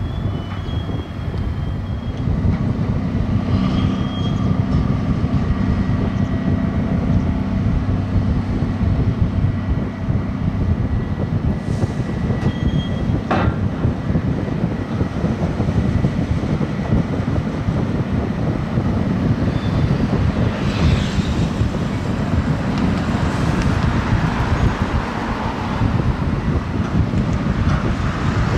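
Grab dredger's crane winch engine running with a steady low rumble and hum, under wind on the microphone. In the second half the clamshell grab bucket is hoisted out of the water, and water spills and splashes off it.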